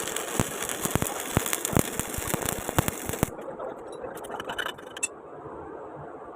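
Stick welding arc crackling and spitting, which cuts off abruptly a little over three seconds in; a few scattered clicks follow.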